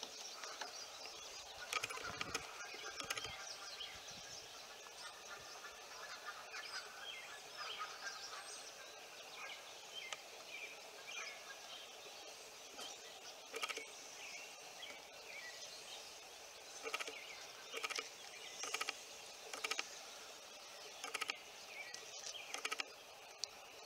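Painter's tape being peeled off a pickup's plastic side-marker reflector and grille surround: scattered short crackles and rips over steady outdoor background noise, with birds chirping.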